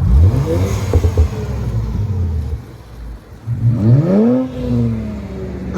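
A car engine revving: it climbs sharply at the start, holds a steady low note, drops away, then about three and a half seconds in rises in pitch and falls back again.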